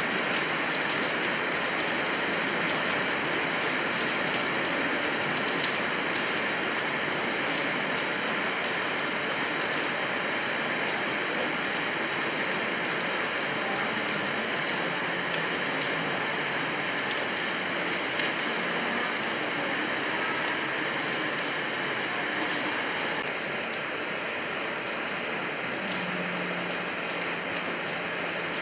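Heavy rain falling steadily and splashing on rock and ground. It eases slightly late on.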